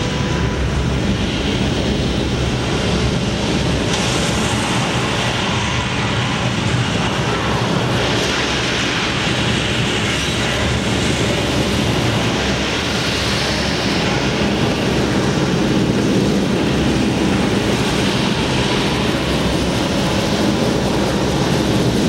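Saturn V rocket liftoff sound played through a theatre's loudspeakers: a loud, steady, deep rumbling noise with no let-up.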